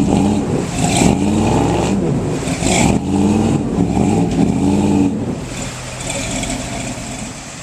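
4x4 off-road truck engine revving hard in repeated rises and falls while working over a rough, muddy trail. About five seconds in it drops back to a steadier, quieter idle.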